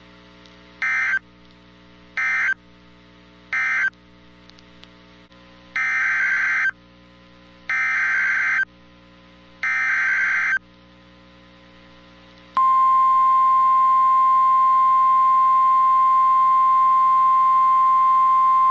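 NOAA Weather Radio EAS data tones. First come three short bursts of SAME digital warble, the end-of-message code closing the previous warning. Then three longer SAME header bursts announce a new alert. About twelve seconds in, the steady 1050 Hz warning alarm tone starts and holds, signalling that a warning follows.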